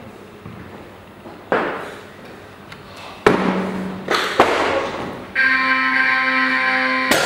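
Olympic weightlifting snatch: a few heavy thuds from the lifter's feet and the barbell as she pulls and drops into the catch. Then a steady electronic buzzer sounds for about two seconds, the referees' down signal for the lift. A loud crash follows right at the end as the loaded barbell is dropped onto the platform.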